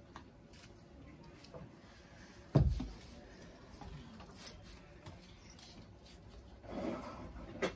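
Plate-loaded iron dumbbells handled during a workout: one heavy thud about two and a half seconds in, with light clicks and knocks around it. A short rush of noise and a sharp click come near the end.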